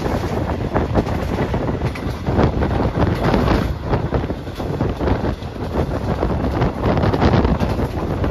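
Wind buffeting the phone's microphone: a loud, uneven rushing rumble that rises and falls in gusts.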